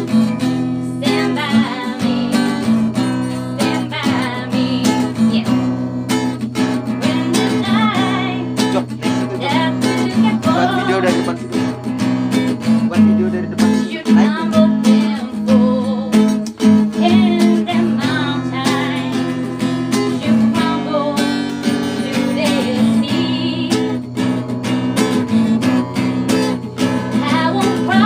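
A woman singing a song over a strummed acoustic guitar.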